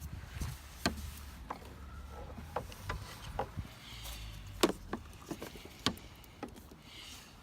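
Irregular clicks and knocks of hands handling parts in a car's engine bay while turbo hoses are fitted, with two louder knocks a little past the middle.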